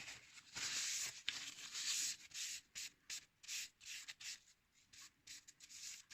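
Irregular rubbing strokes on a wet whetstone, a series of hissy scrapes of uneven length, as the stone is scrubbed to clear its slurry.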